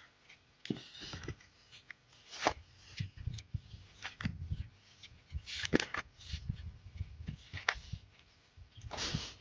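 Irregular rustling and scraping with soft knocks, the sound of hands at work harvesting in a vegetable garden, with a few sharper scrapes along the way.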